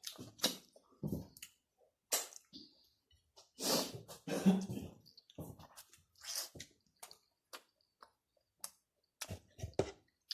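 Close-miked eating sounds: wet chewing and smacking of food in an irregular run of short bursts, busiest about four to five seconds in.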